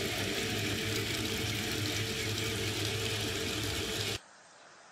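Loud, steady industrial machinery noise with a constant low hum under an even hiss, cutting off suddenly a little past four seconds in.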